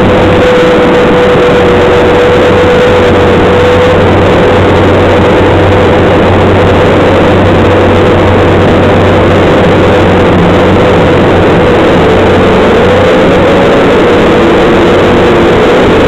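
Bobcat skid steer loader running loud and steady, heard from inside its cab while it drives, with a steady whine over the engine noise that wavers in pitch near the end.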